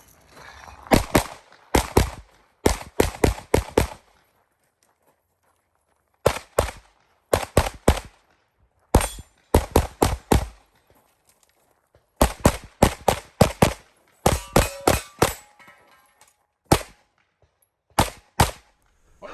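Rapid pistol fire on a practical-shooting stage: shots mostly in quick pairs, strung into bursts, with breaks of one to two seconds between strings where the shooter moves or reloads.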